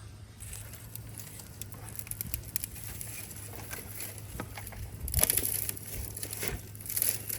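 Dry kindling crackling and rustling as a fire is lit: irregular small crackles and crinkles, busiest about five seconds in and again near the end.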